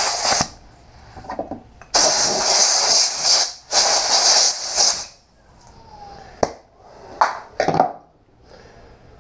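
Compressed-air blowgun hissing in three blasts, a short one at the start, then two of about a second and a half each, blowing dry a cleaned transmission clutch piston before new O-rings go on. A few sharp clicks follow near the end.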